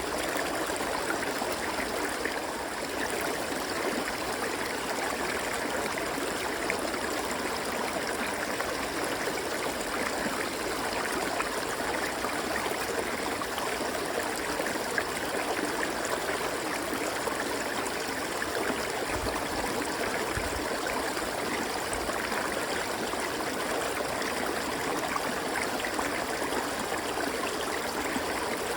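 River water flowing and babbling over rocks in a steady, unbroken rush.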